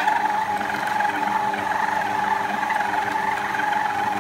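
Stand mixer motor running with a steady whine while kneading a stiff colomba dough at raised speed.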